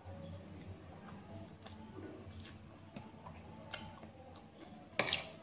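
Metal spoon and fork tapping and scraping on a plate while eating: light scattered clicks, with a sharper clink near the end.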